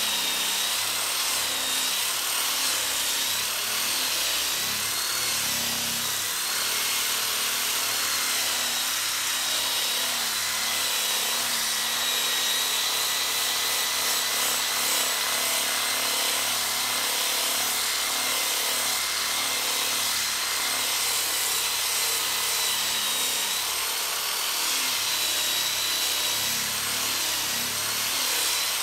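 Electric drill with a rotary sanding attachment running continuously, the pad rubbing on wood: a steady high whine that wavers slightly in pitch over a dense sanding hiss.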